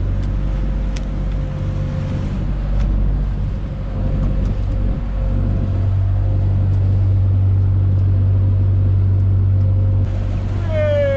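Fishing boat's engine running with a steady low hum. Near the end a tone glides downward in pitch.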